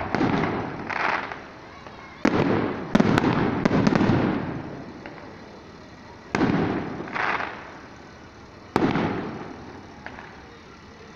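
Aerial firework shells bursting: a sharp bang at the start, a quick cluster of bangs around two to four seconds in, then single bangs around six and nine seconds in, each followed by a rolling rumble that dies away over a second or two.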